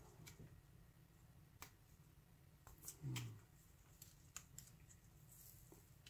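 Faint scattered clicks and crinkles of red electrical tape being peeled by hand off a lock key, with a short low-pitched sound about halfway through.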